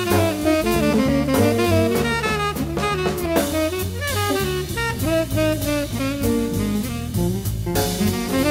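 Small jazz group playing at an up tempo: tenor saxophone improvising a quick line over double bass and a drum kit with cymbals.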